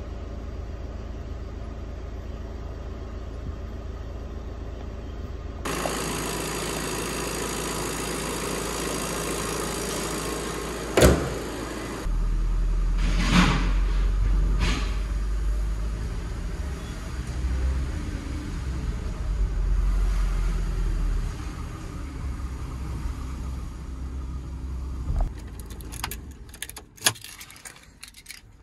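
VW Transporter T6's 2.0 TDI four-cylinder diesel running on test after a new timing belt and water pump, heard from the driver's seat. A steady low hum is broken by a few single knocks and a cluster of clicks near the end.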